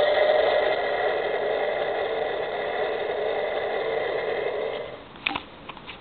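Thunderbird 3 toy rocket's electronic blast-off sound effect: a steady rocket-engine rush played through its small built-in speaker, slowly tapering and dying away about five seconds in, followed by a couple of sharp clicks.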